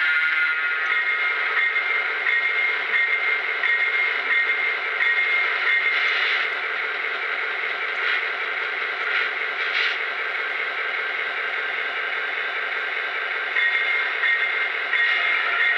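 Lionel Chessie SD9 model diesel locomotive's electronic engine sound running steadily while the locomotive stands still, with a short high chime repeating about every 0.7 s for the first few seconds and again near the end.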